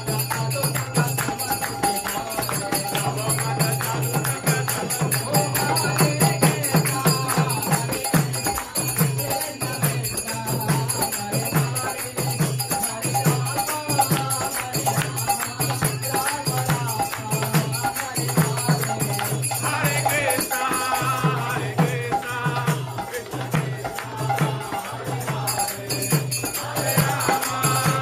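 Kirtan: a mridanga drum beats a steady rhythm under jingling hand cymbals, with a group singing devotional chant over it, the voices coming forward about twenty seconds in and again near the end.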